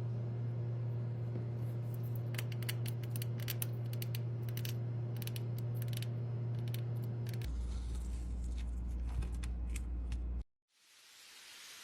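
A machine running with a steady low hum and many scattered sharp clicks; about seven and a half seconds in the hum drops to a lower pitch, then it cuts off and a steady even hiss begins near the end.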